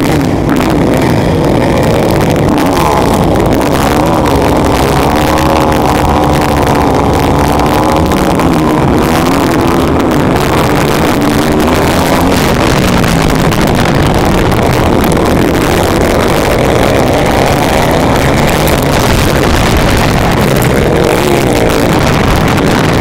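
Motocross bike engines heard onboard: the rider's own bike revs hard and its pitch rises and falls through the gears, mixed with the engines of the surrounding pack of bikes.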